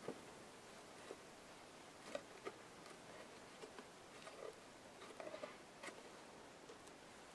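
Faint, scattered light clicks and taps with a few soft rustles from hands handling a cardboard board book, over near-silent room tone.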